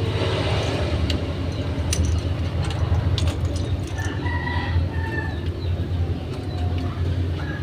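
A rooster crowing briefly about four seconds in, over a steady low hum and a few sharp clicks.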